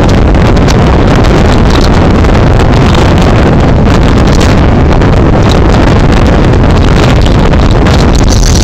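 Strong storm wind blowing across a phone's microphone: a loud, steady rumbling rush, with heavy surf breaking on the beach beneath it.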